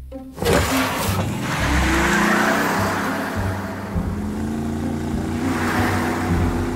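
Box delivery truck driving off, starting about half a second in: engine running with a rushing road noise, over light background music.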